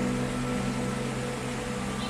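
Steady rush of the Río Claro's flowing water, with slow, sustained music tones laid over it.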